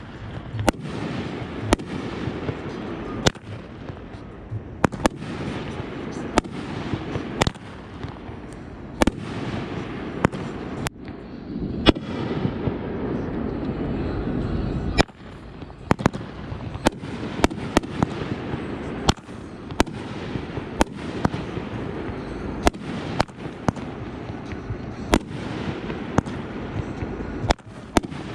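Consumer fireworks going off: sharp bangs, about one a second, over a steady background rush of noise.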